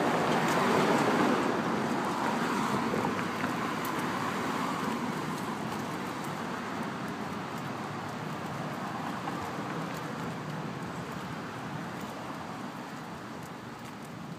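Road traffic noise: a car passing, loudest about a second in and slowly fading away.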